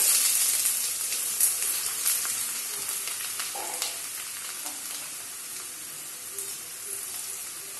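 Chopped onion sizzling in hot oil in a pan, starting suddenly and loudest as it goes in, then settling into a quieter, steady frying hiss with small crackles as it is stirred with a wooden spatula.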